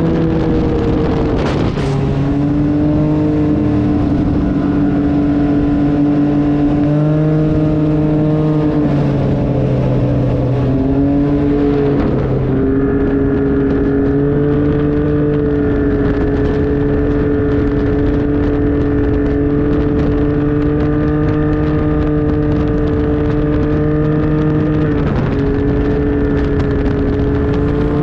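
Can-Am three-wheeled motorcycle engine running at highway cruising speed, its pitch holding steady for long stretches with a few small shifts, notably around 12 seconds and again near the end. Wind rushes and buffets over the microphone throughout.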